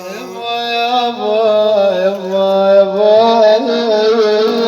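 A voice singing a long, drawn-out phrase in Arabic maqam style, its pitch wavering and sliding through ornamented turns, over a steady held low tone.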